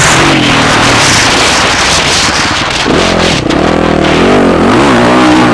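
Motocross bike engines running hard, a dense engine noise at first. From about three seconds in, one engine stands out, its pitch rising and falling as the throttle opens and closes.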